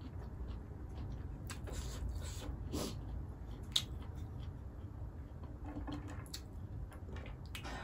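Close-miked eating sounds: chewing with the mouth closed and fingers squishing rice and pork gravy together on a plate, with scattered small wet clicks. A sharp click sounds a little under four seconds in. A steady low hum runs underneath.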